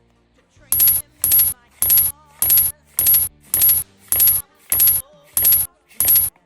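A short, bright, coin-like jingling sound effect repeated ten times in a steady even rhythm, a little under two a second.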